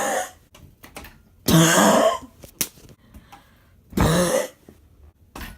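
A person making odd, throaty vocal noises, like harsh throat-clearing grunts: three loud bursts, one at the start, one about a second and a half in and one about four seconds in. A single sharp click comes between the second and third.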